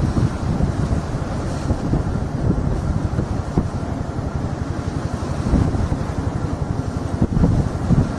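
Wind buffeting the microphone in irregular gusts over a low rumble of boat engines on open water.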